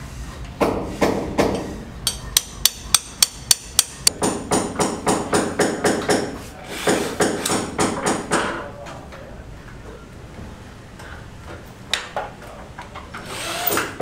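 Hand hammer blows: a run of sharp, evenly spaced strikes about three a second, then quicker strikes with a metallic ring. The hammering stops after about eight and a half seconds, with one more knock near twelve seconds.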